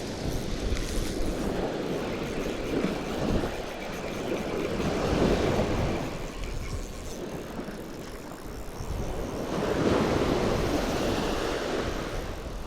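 Surf washing up the beach, with wind buffeting the microphone. It swells twice, about five seconds apart.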